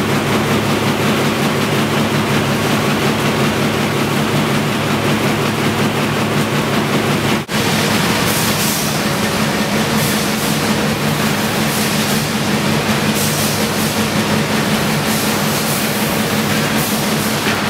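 Corrugated box-making machinery running: a continuous mechanical clatter and hum of rollers and conveyors feeding box blanks, with a momentary drop about seven and a half seconds in.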